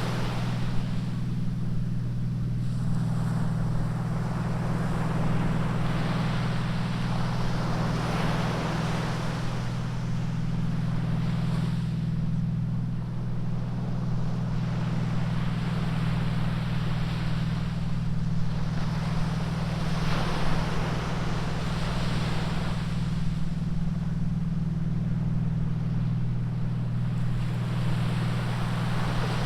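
Ocean surf washing ashore, the rush of the waves swelling and fading every few seconds, over a steady low hum.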